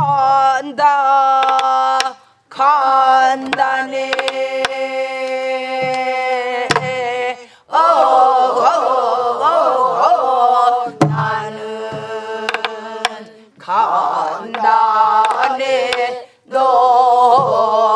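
Woman singing a Namdo (southern Korean) folk song in long held, wavering phrases, with a group of voices joining in. Scattered strikes on buk barrel drums keep the beat.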